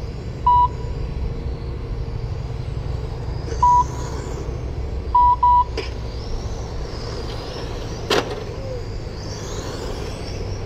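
Short, loud electronic beeps at one steady pitch: one, another about three seconds later, then a quick double beep. They sound over a steady low rumble, and a single sharp click comes about eight seconds in.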